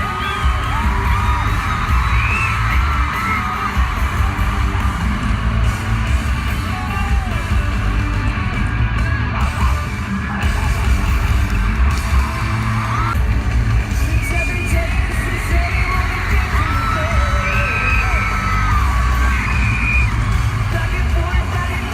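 Live pop-rock band playing loud, recorded on a phone in the crowd, with heavy, boomy bass and high voices of fans yelling and singing along over the music.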